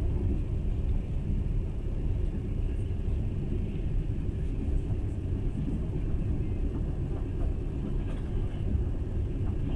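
Passenger train running, heard from inside the carriage: a steady low rumble of the wheels on the rails.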